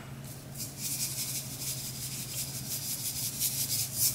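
Tiny star-shaped sequins shaken from a small container onto glitter slime: a dry, fine rattle in quick repeated shakes that stops near the end.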